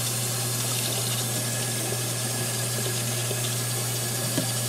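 Steady rush of water running from a tap into a stainless-steel sink, with a steady low hum beneath it. A faint click comes near the end.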